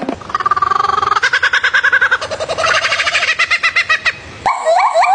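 An animal, most like a bird, giving a rapid train of pulsed, stuttering calls, about ten a second, that shift up and down in pitch in steps. Near the end it cuts to a different call: repeated chirps that sweep upward.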